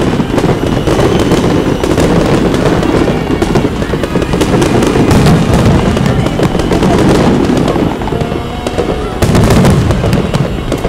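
Aerial fireworks display going off in rapid succession: overlapping booms and crackles with no let-up, and a louder volley about nine seconds in.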